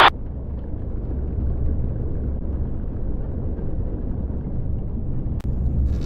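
Deep, uneven rumble of a thunderstorm, with a brief break in the sound near the end.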